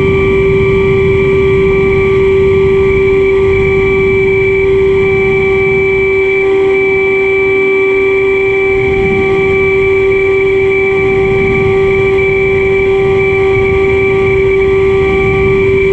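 Foam delta-wing model plane's motor and propeller running with a steady, unchanging whine, under loud wind rumble and buffeting on the microphone.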